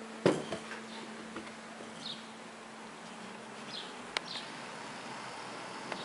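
Handling noise: one sharp knock about a third of a second in, then a few light clicks and taps as the boxed processor and camera are moved. A faint steady hum sits underneath for the first half.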